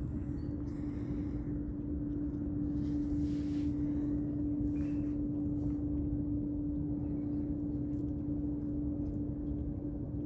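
A steady mechanical drone, like a motor or engine running, holding one pitch over a low rumble; it cuts off near the end.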